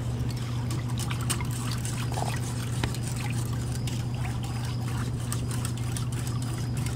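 Wire whisk stirring thin, freshly emulsified cold-process soap batter in a glass bowl: liquid sloshing with many quick light clicks of the tines against the glass. The batter is emulsified but not yet at trace. A steady low hum runs underneath.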